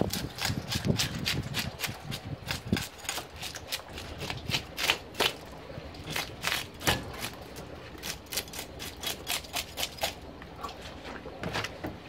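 Scales being scraped off a large wild red sea bream with a wooden-handled fish scaler. The scraping comes in quick, crisp strokes, several a second, in uneven runs.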